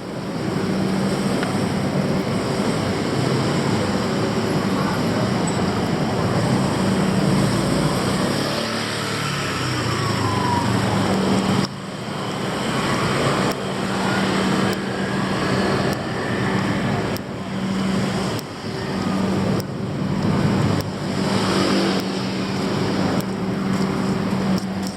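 City street traffic: dense road noise with a steady low engine hum running through it, dipping briefly several times in the second half.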